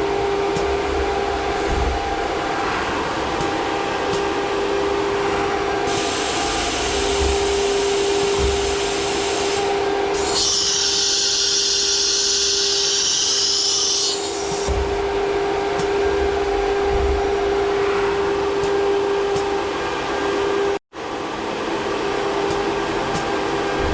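CNC milling machine running, with a steady spindle whine and two stretches of loud high-pitched hissing from about six to fourteen seconds in.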